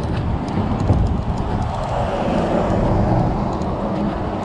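Road traffic on the neighbouring highway bridge, a vehicle passing with a rush that swells to a peak about three seconds in and then fades, over a low steady rumble.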